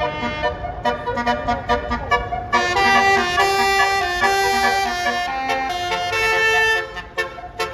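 Bus telolet horn (Basuri multi-tone horn) playing a melody: a run of short notes, then longer held chords from about two and a half seconds in, breaking off near the end.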